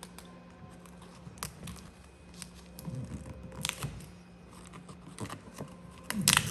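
Vinyl wrap film being handled and worked onto a part: scattered light clicks and crackles, with a steady low hum beneath and a louder crackle near the end.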